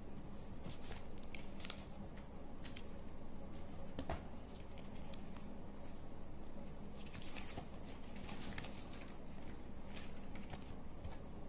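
Cardboard camera box and paper inserts being handled: scattered rustles, light taps and scrapes, with a sharper knock about four seconds in and a longer rustle a few seconds later, over a steady low hum.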